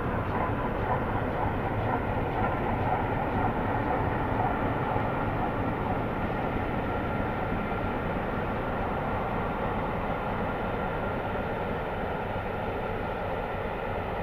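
Steam-hauled passenger train headed by the LNER A3 Pacific Flying Scotsman crossing a stone viaduct: a steady rumble of the train on the rails that slowly grows quieter.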